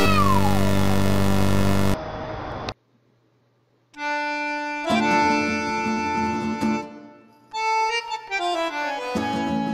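Background music: one loud track stops about two seconds in. After a second of silence a different tune with long held notes begins.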